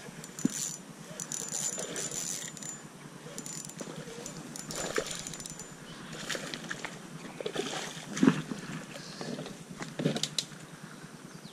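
A RUNCL Grim 1 spinning reel being wound in while a hooked bass is played, with scattered clicks and light knocks of the rod and reel being handled.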